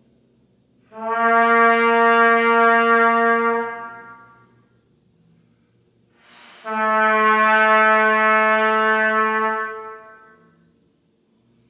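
Trumpet playing two long, steady notes on the same pitch, each held about three seconds, begun with air alone rather than the tongue. The second note opens with a brief rush of breath before the tone speaks.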